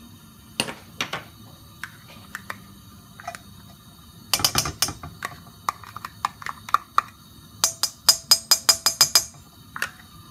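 Sharp taps and clicks of a plastic tub knocked against a steel wok as butter ghee is shaken out into it. A cluster of knocks comes about halfway through, then a quick run of about ten taps near the end.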